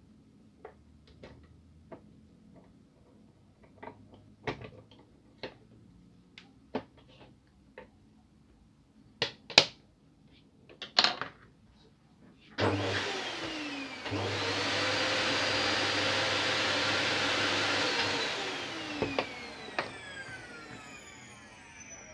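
Scattered clicks and taps as the plastic drum unit is handled. Then a vacuum cleaner motor switches on about two-thirds of the way in, runs steadily for a few seconds, and winds down with a falling whine near the end.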